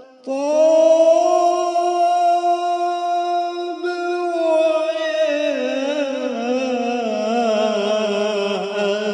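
A solo voice chanting an Arabic devotional qasida: it holds one long steady note for about four seconds, then moves into a slowly wavering, ornamented melodic line.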